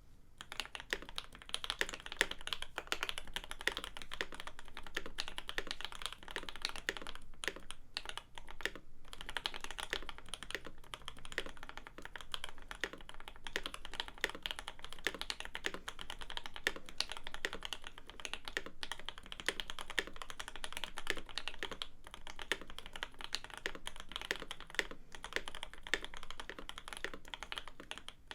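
Steady, fast typing on a custom mechanical keyboard: a Leopold FC980M in a Norbauer Heavy 9 metal case, with lubed and filmed H1 switches on a foam-damped steel plate and lubed Durock plate-mount stabilisers. A dense run of key clacks with a brief break about eight seconds in.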